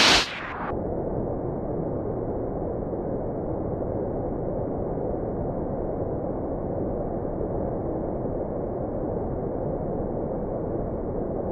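Steady, muffled rushing of water, even and unbroken, after a loud hiss that cuts off about half a second in.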